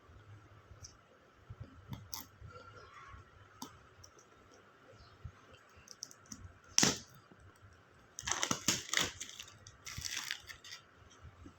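Phone packaging being handled during an unboxing: scattered light clicks, a sharp knock about seven seconds in, then two bursts of crackling rustle, like plastic wrap or film being crinkled, near the end.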